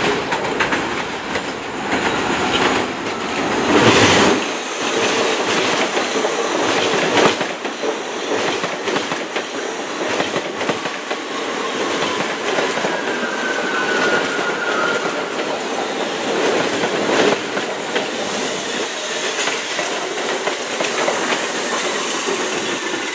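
R68A subway train approaching over the switches and passing close by, its wheels clattering over rail joints and switch frogs in a run of clacks. The loudest clack comes about four seconds in.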